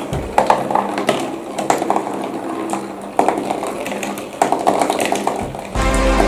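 Glass marbles clicking and rattling along a cardboard marble run, in bursts roughly every second or so. Music comes in near the end.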